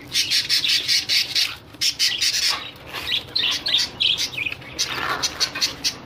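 Caged budgerigars chattering: a rapid string of short, high-pitched squawks and chirps, several a second, with brief lulls.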